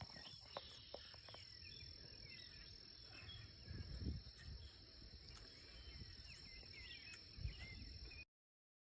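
Faint outdoor ambience: a steady high insect trill, typical of crickets, with scattered faint bird chirps and a low rumble of wind or handling noise, cutting off suddenly near the end.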